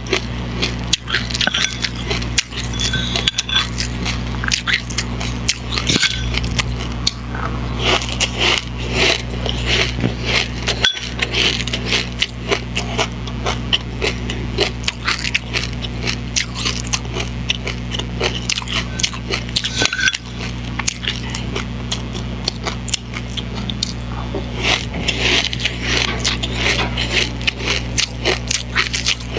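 Close-miked crunching and chewing of dry chilli seeds and buckwheat: dense small crackles and cracks running on without a break, over a steady low electrical hum.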